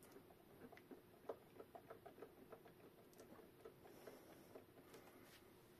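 Faint scattered clicks and small plastic rustles as a battery cable connector inside a portable power station is worked loose by hand.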